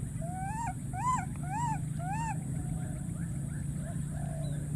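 A baby monkey calling: four short cries about half a second apart, each rising then falling in pitch, then a few fainter calls near the end, over a steady low hum.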